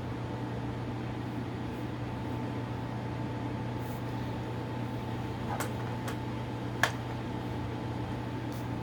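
Steady low hum, with a faint higher steady tone above it, and a few sharp clicks in the second half, the loudest about seven seconds in.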